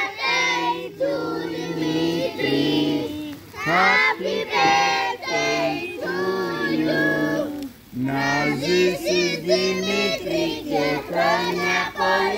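A child's voice singing a song in held, stepped notes, phrase after phrase with short breaks between them, over backing music.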